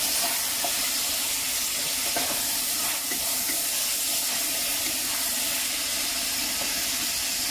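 Sliced yellow cucumber sizzling steadily in a pan just uncovered and steaming, while a wooden spatula stirs it with a few soft knocks against the pan.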